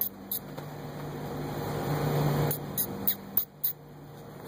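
A puppy mouthing and tugging at a sneaker and its laces: scattered soft clicks and rustles, a cluster of them a little past halfway, over a steady low hum.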